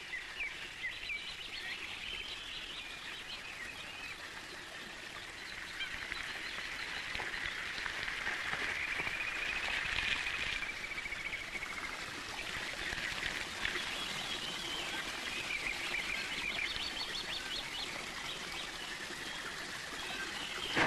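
A dense chorus of short, high chirping animal calls, growing louder around the middle.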